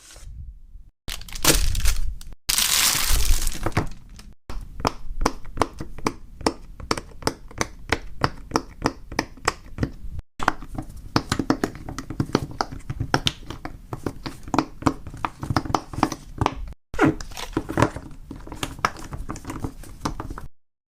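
Fidget toys being handled, giving dense, irregular clicking and crackling with some crinkling, in several short clips that cut abruptly from one to the next.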